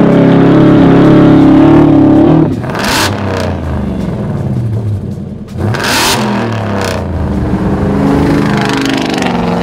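Ford F-150 Raptor R's supercharged V8 through a MagnaFlow xMod Series performance exhaust, held at high revs under throttle. About two and a half seconds in it drops off, then revs fall and rise again. Two brief rushing noises come about three and six seconds in.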